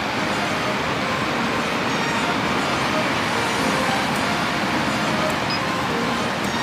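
Heavy rain falling, a steady even hiss that grows heavier.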